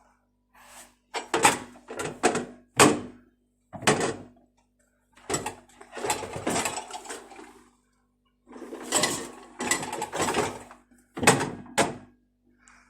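Hard clattering knocks and rattles from a dishwasher's lower spray arm and dish rack being handled. There are single sharp clacks and two longer rattling spells. The spray arm is catching on an obstruction as it turns: a plate that has fallen beneath it.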